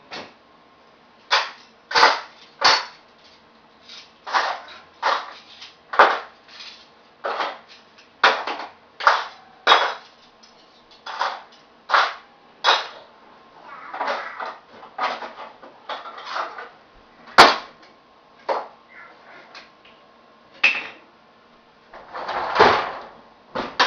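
Dishes and cutlery clinking and clattering as a dishwasher is unloaded, in short sharp knocks about once a second. Near the end comes a longer rattle as the dishwasher is closed.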